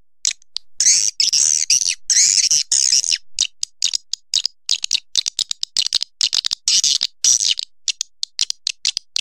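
Swiftlet calls: dense bursts of high, rapid twittering chirps in the first three seconds, then a fast stop-start run of short chirps and clicks. It is the kind of swiftlet call track played to draw swiftlets to nesting houses.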